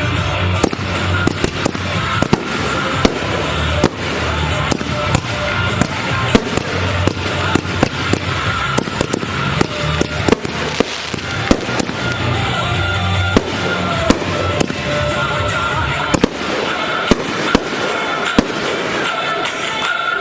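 Fireworks going off in quick, irregular succession, sharp bangs and crackles throughout, over music playing with a steady bass.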